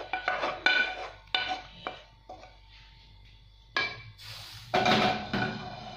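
A spatula knocks and scrapes minced meat out of a speckled coated frying pan into a glass baking dish, with a quick run of ringing clinks in the first two seconds. After a short lull come a few more knocks, the loudest about five seconds in.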